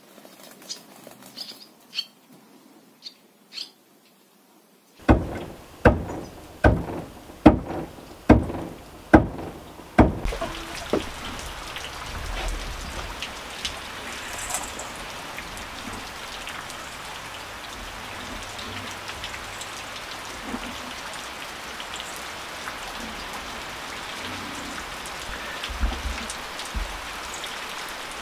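Faint barn swallow chirps at the nest, then a run of about a dozen sharp knocks, then a steady, rain-like hiss of flour being sifted by hand through a metal sieve.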